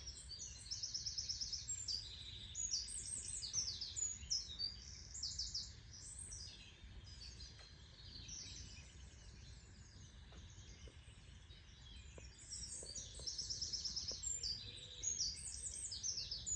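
Songbirds singing, many rapid high chirps and trills overlapping, over a steady low rumble of background noise. The singing thins out in the middle and picks up again near the end.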